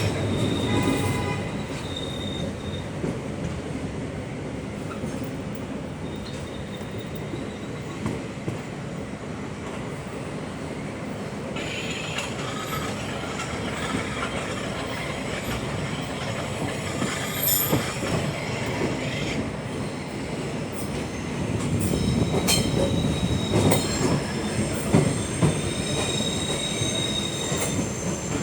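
Class 472 S-Bahn electric multiple unit heard from inside a car while running, with the steady rumble of the ride and high-pitched wheel squeal that comes and goes, strongest over the last several seconds.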